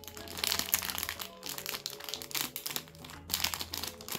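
Thin clear plastic packaging bag crinkling and rustling as it is handled and pulled open to free a small titanium pot stand, in irregular crackles. Background music with sustained notes plays underneath.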